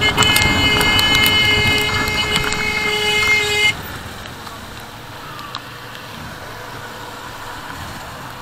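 Vehicle horn sounding one long, steady blast for about three and a half seconds, then cutting off suddenly, leaving only a steady rushing noise.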